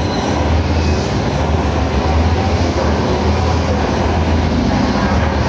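Steady low rumble with an even hiss underneath, running without a break.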